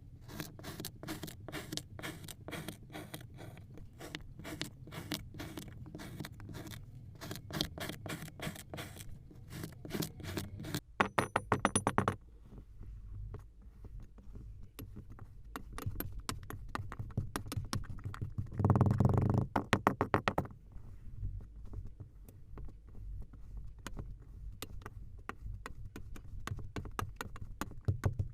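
A knife cutting and scraping through packed kinetic sand: a long run of crisp crunches and clicks, with denser, louder bursts about eleven seconds in and again about nineteen seconds in.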